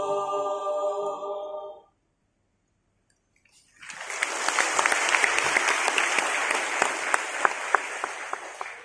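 An a cappella mixed church choir holds its final chord, which fades out a little under two seconds in. After a short silence the audience breaks into applause, which runs on with many sharp claps and falls away at the end.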